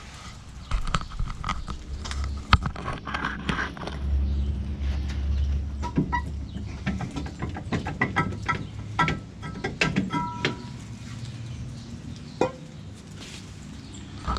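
Clanks, knocks and scrapes of metal parts being handled while a car's rear brake drum is taken off and checked, with a few short ringing metallic notes about nine to ten seconds in.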